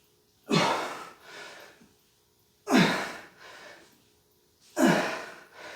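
A man breathing heavily from exertion: three loud, forceful breaths about two seconds apart, each followed by a softer breath.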